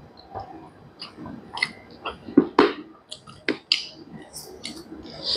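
Close-miked chewing of a mouthful of chicken curry and rice: a string of short clicks and smacks from the mouth.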